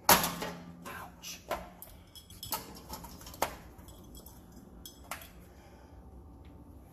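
Metal clinks and knocks as a sheet-metal draft hood and tools are handled against a water heater's steel top: one loud sharp clink at the start, then several lighter ones spaced out over the next few seconds.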